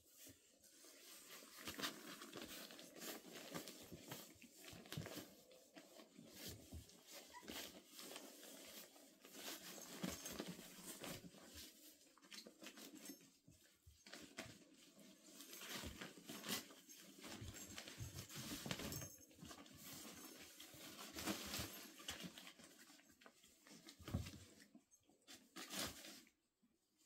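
Faint, irregular rustling and scrabbling as Irish terrier puppies climb over and tussle on a crinkly fabric pop-up cat tunnel, small paws scratching and the tunnel's cloth rustling, with a short lull near the end.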